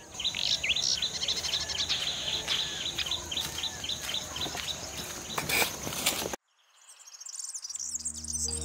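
Small birds chirping rapidly over a steady, high insect buzz. The sound cuts off abruptly about six seconds in, then more high chirping fades in, and soft background music begins near the end.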